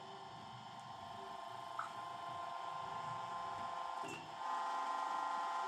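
Hose crimping machine running as it crimps a fitting onto a high-pressure hydraulic hose: a steady machine hum that slowly builds, with a short click near two seconds and a click about four seconds in, after which the hum steps up louder.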